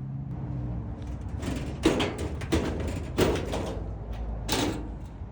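A run of about five scraping, clattering knocks from the sheet-metal parts of a dryer being handled during belt reassembly, the loudest about two seconds in.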